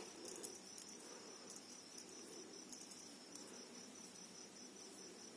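Very quiet: a few soft clicks of thin metal knitting needles as plain stitches are worked, over a faint steady high-pitched background tone.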